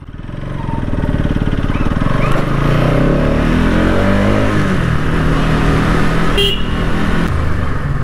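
Bajaj Pulsar NS200's single-cylinder engine and exhaust on the move, the pitch climbing as the bike accelerates over the first few seconds, then holding steady.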